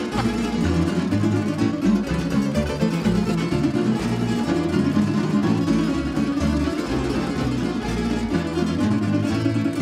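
Tamburica ensemble playing an instrumental passage: plucked-string melody and chords over a steady bass line.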